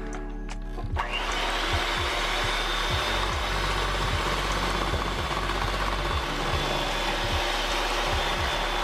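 Electric hand mixer whirring as it beats milk and instant pudding mix, spinning up with a rising whine about a second in and then running steadily at speed.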